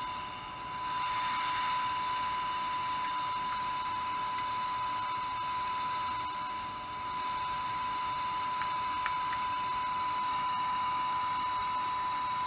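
CB transceiver's speaker giving a steady hiss of static with a constant 1 kHz test tone through it, as its receiver is tuned by ear to a test signal. The hiss dips briefly twice.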